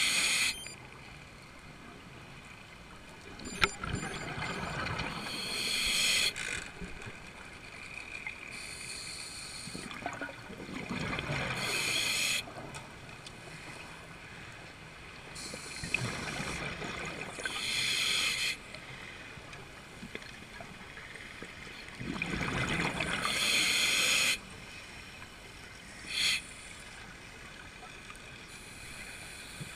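Scuba regulator breathing heard underwater: a diver's exhaled air bubbling out in surges about every five to six seconds, each lasting about two seconds, with shorter hisses of inhaled air through the regulator between them. A single sharp click about three and a half seconds in.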